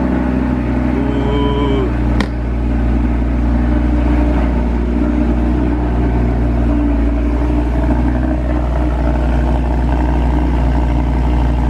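Audi R8 V10 Spider's 5.2-litre V10 just after a cold start, running at a steady, loud fast idle.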